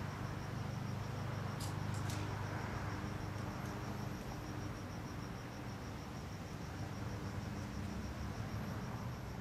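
Crickets chirping steadily in an even, rapid pulse, over a low background rumble, with a couple of faint clicks about two seconds in.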